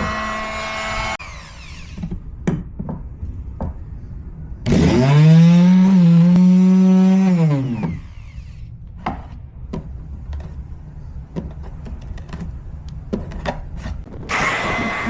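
Handheld power tool cutting the plastic frunk: its motor runs and stops about a second in, runs again from about five seconds, spinning up, holding a steady pitch for about three seconds and winding down, then starts once more near the end. Between runs, clicks and knocks of the plastic piece being handled.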